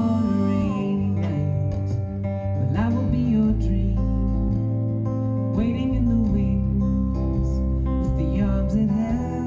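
A live band playing a song led by acoustic guitar, with a man singing over it.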